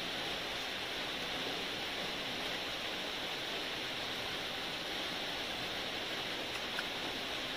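Steady, even hiss of background noise, with one faint click near the end.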